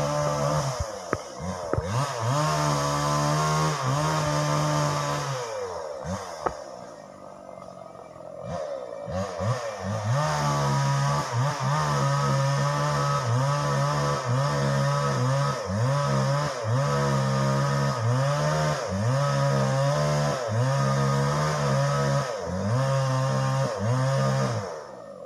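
Two-stroke chainsaw running at high revs, dropping back toward idle about a second in and again for a few seconds around a third of the way through, then revving in a regular rise and fall roughly once a second.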